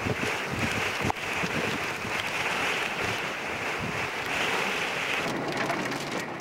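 Strong wind gusting across the microphone: a steady rush with low buffeting thumps, and one sharp click about a second in.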